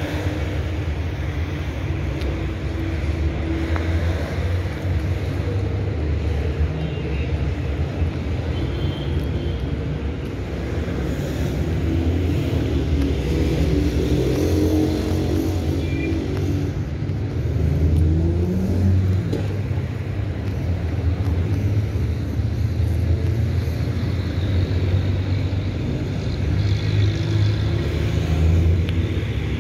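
Road traffic: cars passing steadily with a low rumble. Partway through, one vehicle's engine rises and falls in pitch as it goes by.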